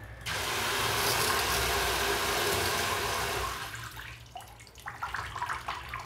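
Water rushing through an instant electric water heater tap, a loud even hiss that fades away about four seconds in as the wall supply valve is turned down to minimum pressure. A few faint clicks follow.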